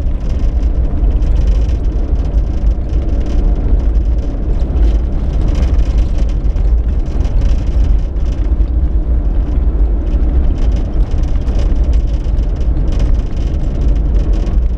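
Hyundai Galloper 4x4 driving along a rough dirt desert track: a loud, steady, heavy rumble of engine and tyres on the rutted ground.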